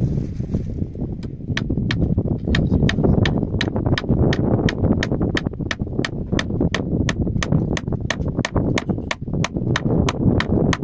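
A steady run of sharp clicks, about three to four a second, starting about a second in and stopping near the end, over a continuous low rumbling noise.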